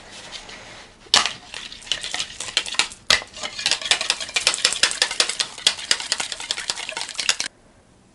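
Wire whisk beating raw eggs in a bowl: rapid rattling strokes of the metal wires against the bowl, starting about a second in and stopping suddenly near the end.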